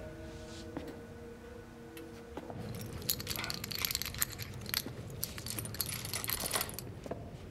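A bunch of keys jangling, with many small metallic clicks and rattles for about four seconds, following a held musical tone that stops about two and a half seconds in.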